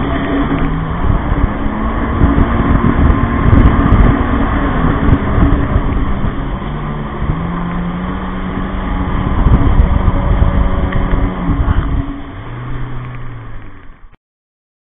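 Kawasaki Ultra LX jet ski's four-stroke engine running at speed over the rush of water, its note rising and falling with the throttle. Near the end the engine note drops, the sound fades, and it cuts off suddenly.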